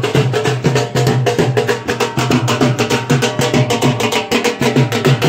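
Dhol drums, double-headed barrel drums beaten with sticks, played in a fast, steady rhythm of sharp stick strokes over a low drum boom.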